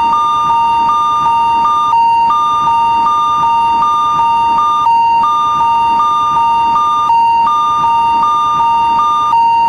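Electronic railroad crossing alarm from an animation: a steady tone with a higher beep pulsing about twice a second over it, broken by a short pause about every three seconds.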